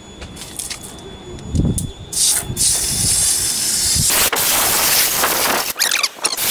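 Engine-cleaner spray hissing onto the engine bay in bursts: a short one about two seconds in, then a longer, louder one lasting about two seconds from around four seconds in.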